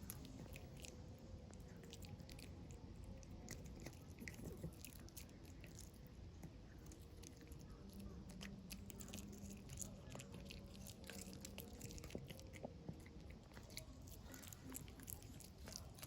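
A dog gnawing and chewing a dog chew, with faint wet smacking and many irregular clicks of its teeth.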